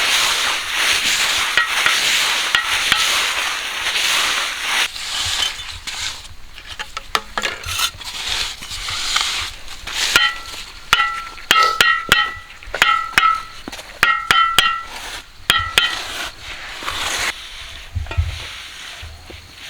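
A metal tool scraping through gritty cement or concrete mix. From about ten seconds in come a string of short, ringing metal clinks.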